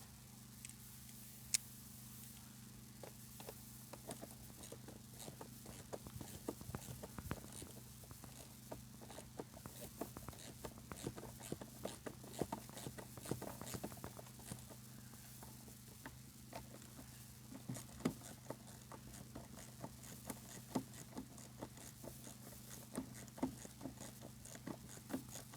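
Faint, scattered small clicks, taps and rustles of hands handling carpet and interior trim parts during fitting, with a few sharper knocks, over a steady low hum.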